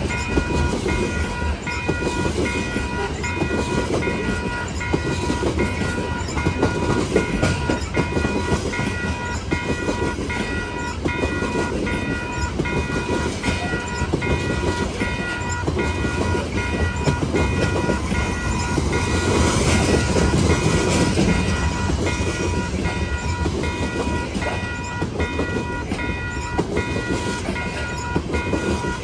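Loaded coal hopper cars of a long freight train rolling past: steady wheel-on-rail rumble with the clack of wheels over rail joints.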